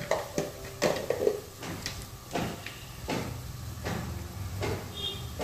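A series of light knocks and clicks from kitchen utensils being handled, a little more than one a second, over a low steady hum.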